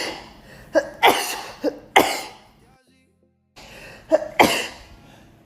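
A woman sneezing in a fit: three sharp sneezes, each after a short, quick catch of breath, with a sudden cut to dead silence between the second and the third.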